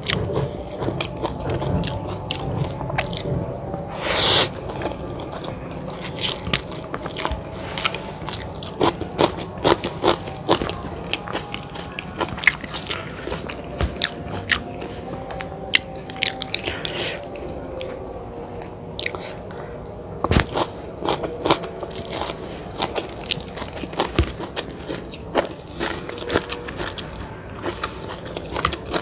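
Close-miked mukbang eating sounds of balado-spiced chicken noodles being eaten: wet chewing and biting with many short crisp crunches spread throughout, one louder crunch about four seconds in.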